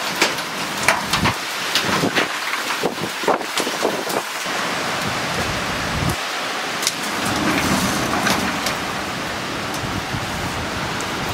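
Wind and rain of a thunderstorm: a steady loud rush broken by many sharp cracks and gusts hitting the microphone, with a heavier low surge of wind partway through.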